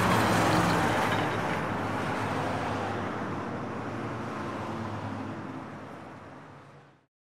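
A truck's engine running as it drives away, steady at first and fading out near the end.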